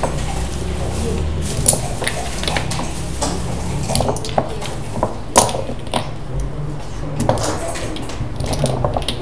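Backgammon checkers clicking against one another and on the board as they are picked up and set down: scattered clicks of varying loudness, the sharpest about five seconds in, over a steady low hum.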